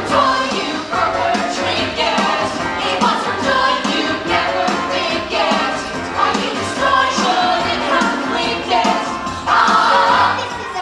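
A song from a stage musical: several voices singing together over instrumental accompaniment.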